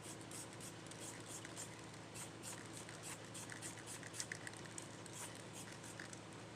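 Small hand work on the taillight: light, irregular scratching and clicking, over a steady low hum.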